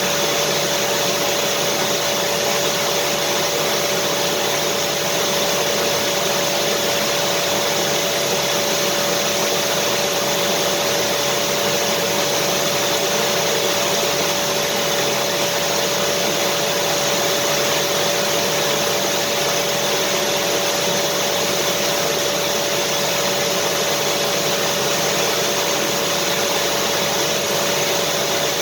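Vacuum cleaner running steadily: an even, unchanging rush of air with a steady motor hum.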